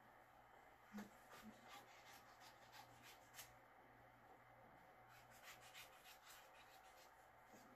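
Near silence: room tone with a faint steady low hum and a few faint scattered clicks.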